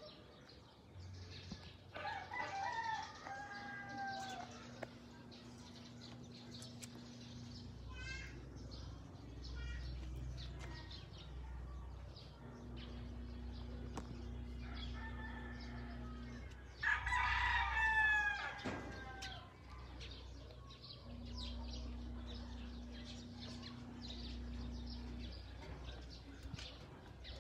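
A rooster crowing twice, about two seconds in and again about two-thirds of the way through; the second crow is louder. A low steady hum comes and goes underneath.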